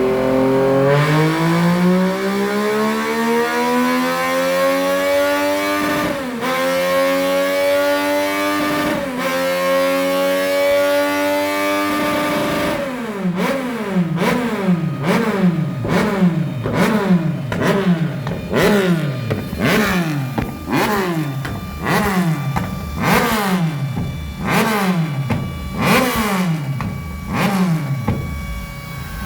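Yamaha MT-09's three-cylinder engine through a Hurricane HF1 full sport exhaust with carbon-fibre tip, pulling up through the revs with two sudden drops in pitch, like upshifts. Then it is blipped hard about once a second, with sharp cracks as each blip falls off.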